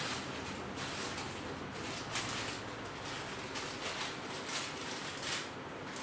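Steady room hiss with a few faint, short soft rustles or clicks scattered through it.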